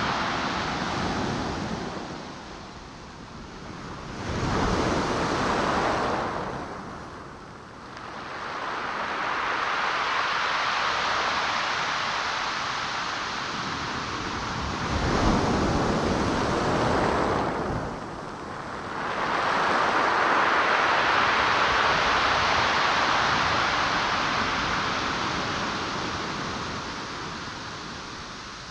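Ocean surf: waves washing onto the shore, swelling and falling every few seconds, fading out near the end.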